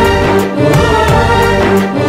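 Background music: an instrumental passage of a Bengali song, with strings holding long notes over a steady beat of about two to three strokes a second.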